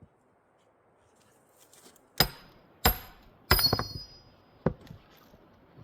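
Four heavy splitting blows landing on a frozen old-growth spruce butt round, spread over about two and a half seconds, the third leaving a brief metallic ring. The round doesn't give: the twisty-grained, frozen wood is hard to split.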